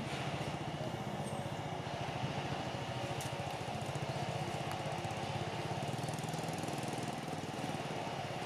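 A small engine running steadily, its sound a fast, even pulsing chug.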